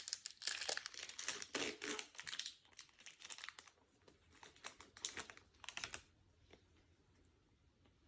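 Wrapper of an Upper Deck Allure hockey card pack crinkling and tearing as it is forced open by hand, a dense crackle that stops suddenly about six seconds in.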